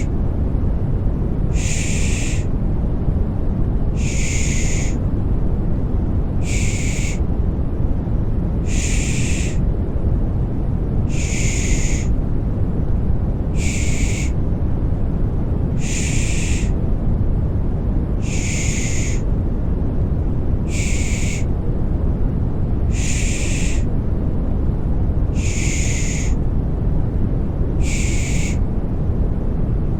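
Rhythmic 'shh' shushing sounds for soothing a baby, one roughly every two and a half seconds, each about a second long, over a steady low white-noise rumble.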